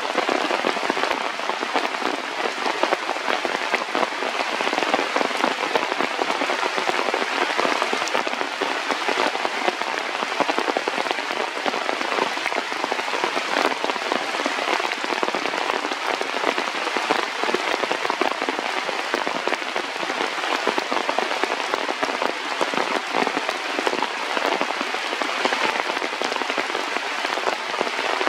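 Steady rain falling, a dense, even hiss of many drops that keeps up without a break.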